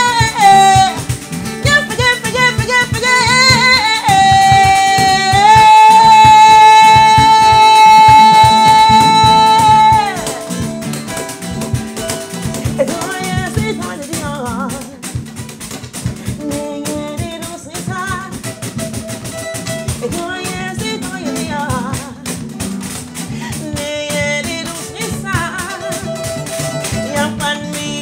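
Live acoustic band performance: a singer holds one long high note for about four seconds, then the music drops back to a quieter passage of acoustic guitar and percussion with short sung or played phrases.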